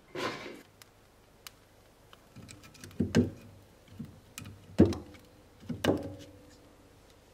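Pieces of firewood being laid into a wood-burning stove's firebox: a series of wooden knocks, three louder ones about three, five and six seconds in, the louder ones followed by a brief ring from the stove.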